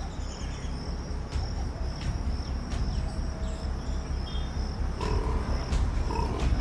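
Crickets chirping steadily at night over a low pulsing rumble, with a couple of short animal calls about five and six seconds in.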